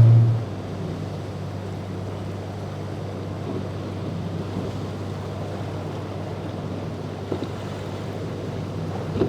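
Boat engine running with a steady low drone, with wind and waves on the water. A louder sound cuts off about half a second in.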